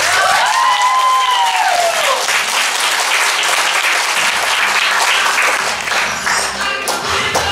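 Audience clapping, with a whoop that rises and then falls in pitch over the first two seconds.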